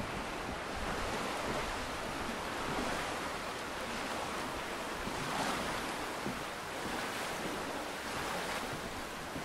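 Wind rushing through woodland trees, swelling and easing in gusts.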